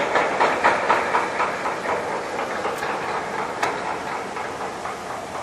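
A rhythmic mechanical clatter, several strokes a second, loudest at first and slowly fading.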